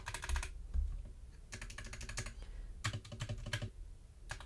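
Mechanical keyboard keys on Durock stabilizer stems, lubed and set in the original stabilizer housings, pressed in four quick bursts of clacks; the stabilizers are a bit noisy.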